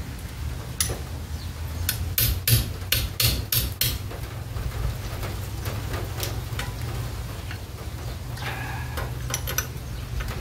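Line wrench and hand tools knocking on seized brake line fittings at the master cylinder: a quick run of about six sharp knocks around two seconds in, with scattered clicks before and after, as the brake-fluid-soaked fittings refuse to turn.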